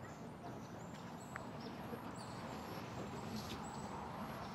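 Outdoor background with a steady low rumble and short, high-pitched chirps repeating every second or so.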